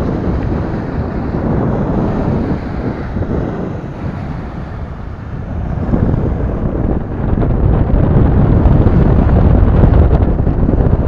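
Wind buffeting the microphone: a loud, low, pitchless rumble that grows stronger about halfway through.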